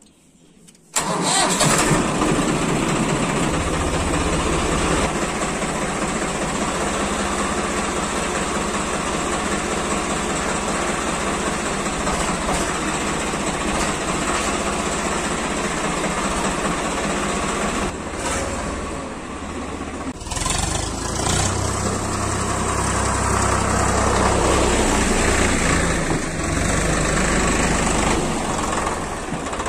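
A diesel tractor engine is started with the key about a second in. It catches at once and settles into a steady run. About 20 s in the sound dips briefly, then rises and stays louder as the engine is revved.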